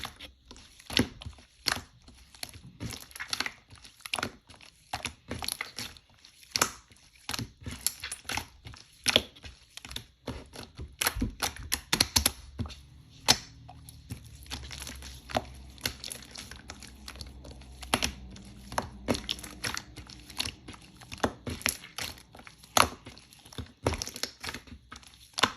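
Slime being squished and poked by hand, giving irregular sharp clicks and crackling pops, a few a second.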